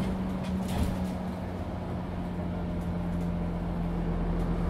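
Isuzu Citiport 18 articulated city bus heard from on board, its drivetrain running steadily with a constant hum over a low rumble and a few light clicks.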